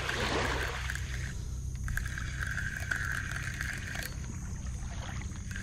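Spinning reel being cranked steadily while reeling in a hooked catfish. A steady low hum runs underneath.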